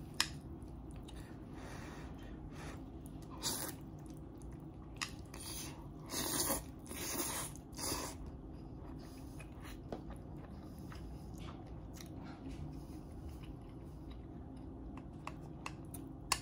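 A person slurping spicy instant noodles off chopsticks in several noisy draws between about three and eight seconds in, then chewing the mouthful more quietly.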